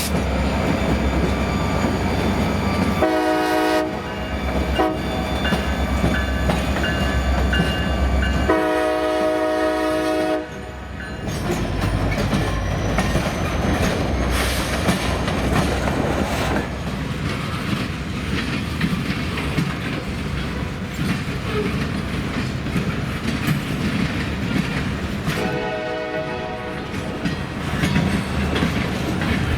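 Diesel train passing with steady rumble and wheel clatter. Its locomotive air horn sounds a short blast about three seconds in, a longer blast around nine seconds in, and another short blast around twenty-six seconds in.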